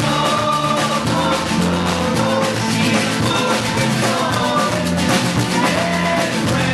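Live band playing loudly, with a drum kit and guitar.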